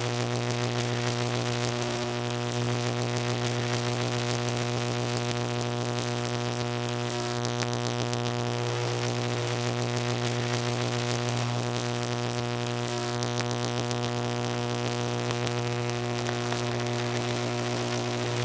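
Electricity buzzing: a steady, low hum with a stack of higher overtones and a crackly hiss on top.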